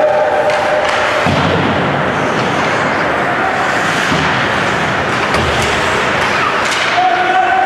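Ice hockey game noise in an arena: a steady wash of rink and crowd noise, with several low thuds as play runs along the boards.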